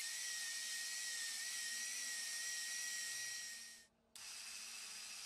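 Proxxon BSE electric mini belt sander running with a steady high whine over a hiss as its belt sands wood. The sound fades out a little after three seconds, and after a brief silence only a fainter hiss remains.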